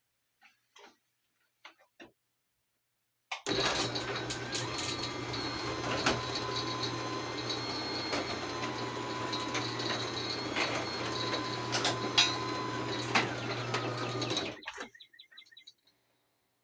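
Electric garage door opener running an insulated sectional door: a steady motor hum with clicks and a thin whine from the door moving, starting suddenly about three seconds in and cutting off abruptly near the end.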